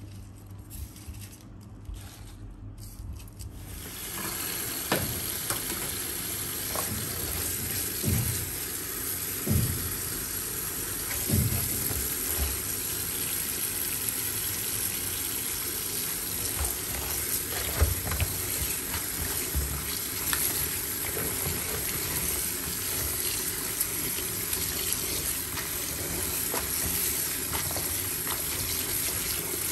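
Tap water running into a plastic basin of cut cabbage leaves in a stainless steel sink, from about four seconds in, with hands splashing and rubbing the leaves in the water.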